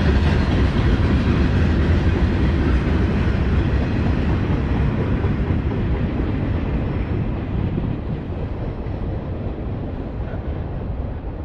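The tail end of a freight train rolling past, a steady rumble of wheels on rail that fades gradually as the last car moves away.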